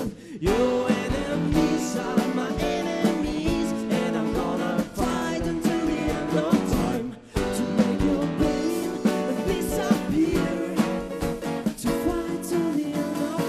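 Live band music: a singer over strummed guitar, with a brief pause about seven seconds in.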